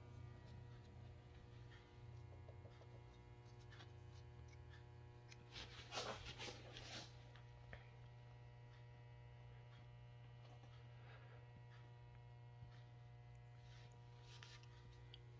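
Near silence: a steady low hum of room tone, with a brief rustle about six seconds in and a few faint clicks near the end.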